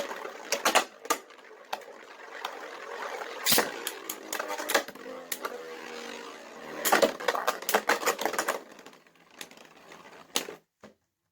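3D-printed Beyblade spinning tops clashing in a plastic stadium: a steady scraping whir broken by sharp clacks of collisions, with bursts of rapid hits about a second in and again around seven to eight seconds. The sound dies away near the end.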